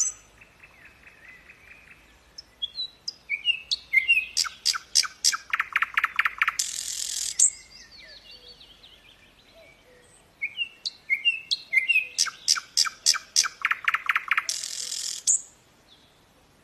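A songbird singing two loud song phrases, each a run of quick rising whistled notes that speeds into a fast trill and ends in a harsh buzzy note, with softer twittering in between.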